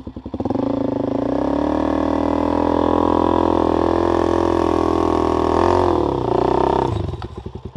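Dirt bike engine revved up hard from idle about half a second in and held at high revs for about six seconds, dipping briefly near the end, then dropping back to idle, as the rider tries to power the bike out of deep sand.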